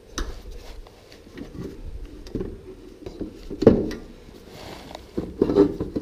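Handling noise as a 12 V diesel heater unit is worked free and lifted out of its mounting: scattered light knocks, rattles and scrapes, with one louder knock a little past halfway.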